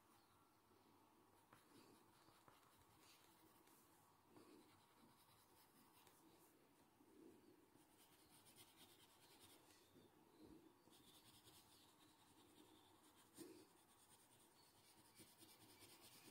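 Faint scratching of a graphite pencil on paper in short, irregular strokes as it shades a drawing.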